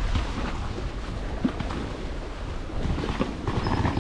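Wind buffeting the microphone over the steady rush of the sea along a sailboat's hull: a low rumble with irregular rustling.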